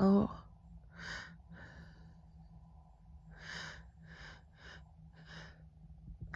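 A woman's short falling "oh", then six quick, breathy catching breaths spread over the next few seconds: the build-up of a hayfever sneeze that has not yet come.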